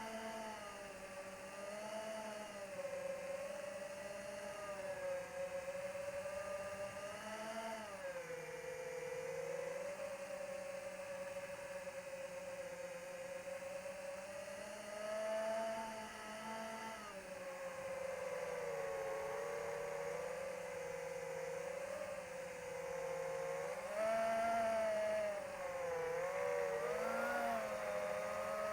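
Electric propeller motors of an AtomRC Dolphin RC plane whirring in flight, the pitch drifting up and down as the throttle changes. The sound is a little louder near the end.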